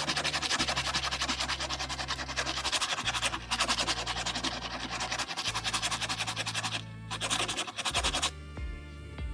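Rapid, continuous scratching strokes, like sanding or rubbing a hard surface, over background music; the scratching pauses briefly near seven seconds and stops a little after eight seconds, leaving only the music.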